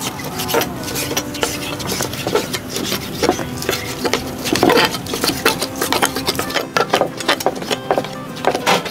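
Several knives chopping boiled beef tripe on wooden chopping blocks: quick, irregular, overlapping knocks of the blades through the tripe onto the wood.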